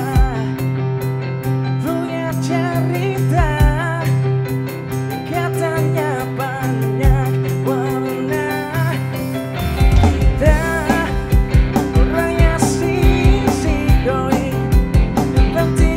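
Live band playing a song, with a male singer over electric guitar, bass guitar and drums. About ten seconds in, the drums come in with a steady beat and the band gets a little louder.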